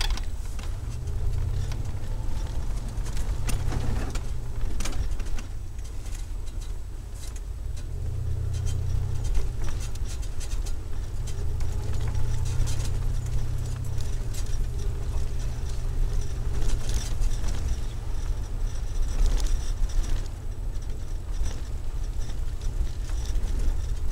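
A 351 Windsor V8 exhaust running through a Flowmaster Delta Flow 50 series single-inlet, dual-outlet muffler, heard as a deep drone inside the van's cabin. The drone swells and eases a few times, with scattered clicks and rattles from the interior.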